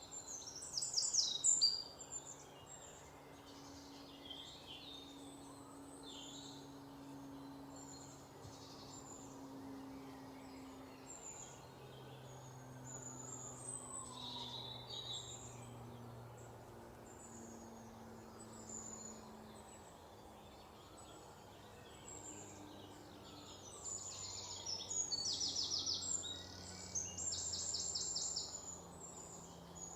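Small birds chirping on and off, with a loud burst of calls about a second in and rapid trills near the end, over a faint low hum.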